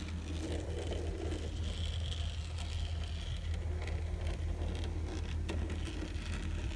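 N scale Bachmann 0-6-0 steam locomotive chassis running along the track under power, its small motor and gear train giving a steady low hum with a few light clicks from the wheels on the rails. It is running smoothly, its driving wheels freshly re-quartered.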